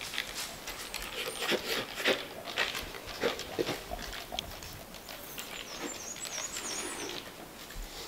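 Black bear close by, making a quick, irregular run of rough, scratchy noises over the first four seconds. Small birds chirp faintly near the end.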